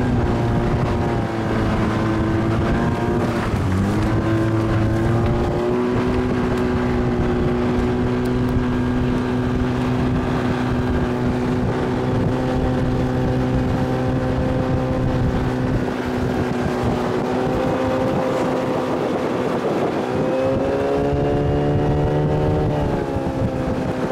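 Motorboat engine running under way, steady, its pitch dipping and rising a few times as the throttle changes.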